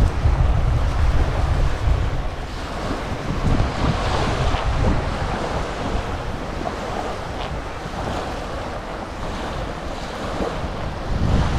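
Wind buffeting the microphone over the steady wash of surf on a beach, the low rumble of the wind strongest at the start and again near the end.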